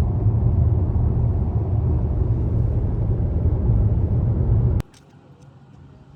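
Steady low rumble of a car driving on the road, heard from inside the cabin. It cuts off suddenly about five seconds in, leaving a much quieter background.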